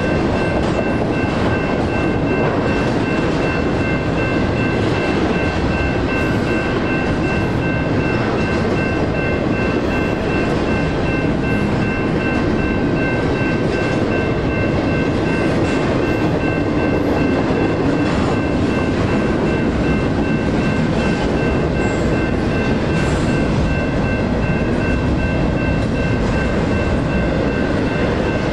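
Intermodal stack train rolling through the crossing with steady wheel rumble and clatter, while the NEG electronic crossing bells ring rapidly and continuously over it.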